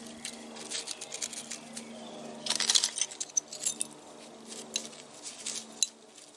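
Mussel shells clicking and clinking against one another as they are taken from a small plastic pot and laid on potting soil, with a busier burst of clinks about halfway through.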